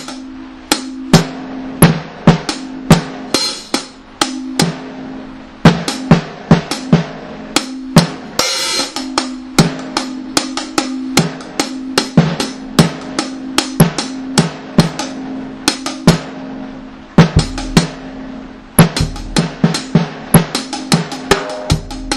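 Drum-kit music in a one-drop dub rhythm: kick, snare and cymbal hits over a steady held low note. Two longer crashing bursts come near the start and about a third of the way in. Deep bass thuds join for the last few seconds.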